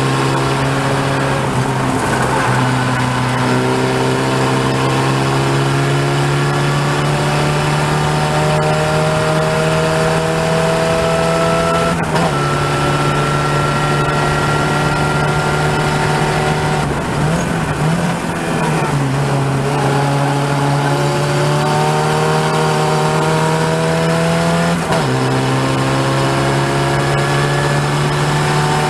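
Open-wheel race car's engine heard from onboard, running hard with its pitch climbing steadily and dropping sharply at upshifts about 12 and 25 seconds in. Around 17 to 19 seconds the note wavers and falls briefly as the driver lifts, then climbs again.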